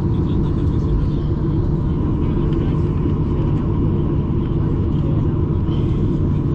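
Steady low rumble of a Boeing 737-800's cabin, the engines and airflow heard from a passenger seat, with a faint steady whine above it.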